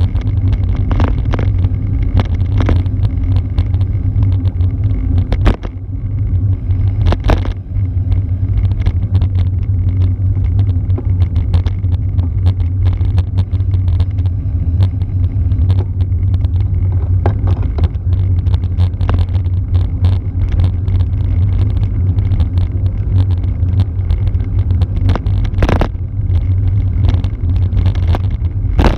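Steady low wind rumble on the microphone of a bicycle-mounted camera, mixed with road noise from a road bike's tyres rolling on asphalt, with a few brief knocks from bumps in the road.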